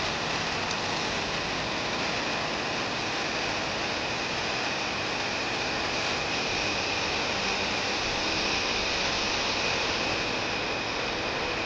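Steady hiss with a faint high whine running through it, unchanging throughout.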